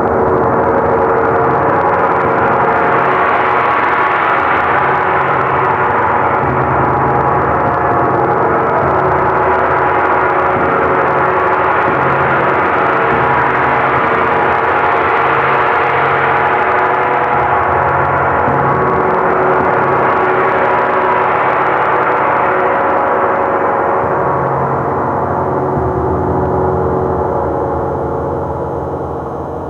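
45-inch hand-hammered gong by RM Shelledy, played continuously with a soft round mallet: a dense sustained roar whose bright shimmer swells and ebbs in slow waves. Near the end the playing stops and the gong rings on, beginning to fade.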